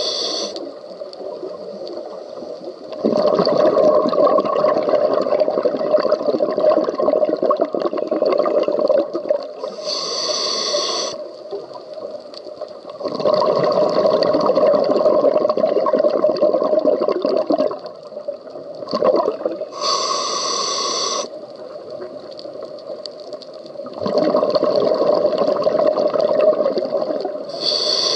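Scuba diver breathing through a regulator underwater: a short hiss of air through the demand valve on each inhale, about every ten seconds, each followed by a long rush of exhaled bubbles.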